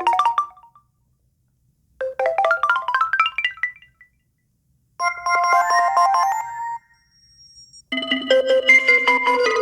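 HTC One M8 stock ringtone: short phrases of quick, bright notes, mostly rising runs, repeated with gaps of about a second between them. Near the end a different, fuller ringtone with a low held note starts.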